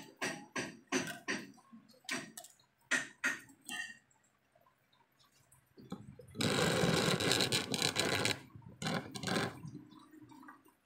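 A quick run of sharp clicks and taps, such as small tools working on a circuit board during soldering, over the first few seconds. About six seconds in comes a loud rushing noise lasting about two seconds, then a shorter one.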